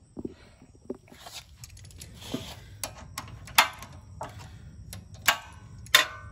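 Metal clinks and clicks as already-loosened 9/16 mounting bolts are backed out of a pressure-washer pump's flange with a wrench: a series of sharp, irregularly spaced metallic clicks with short ringing, the loudest in the second half.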